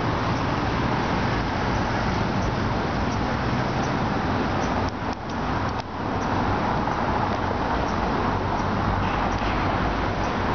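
Steady road traffic noise from cars passing on the street, with two brief drops in level about five and six seconds in.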